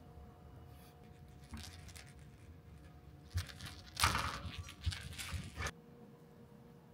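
Minuet kitten scrabbling and scuffling while wrestling a hanging string toy, bumping against a wire playpen: rustling and scuffing with a few dull knocks, loudest about four seconds in, stopping abruptly near the end.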